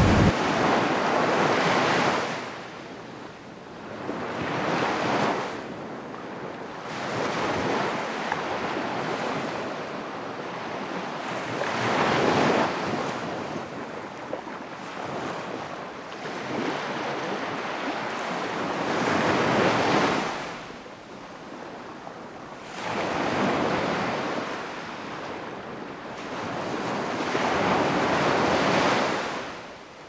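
Ocean surf: waves breaking and washing in, the hiss of the surf swelling and fading about every three to four seconds.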